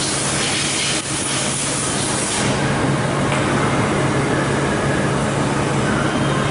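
Okuma MACTURN 30 CNC turning centre running: a steady low hum under a strong hiss, the hiss easing about two and a half seconds in.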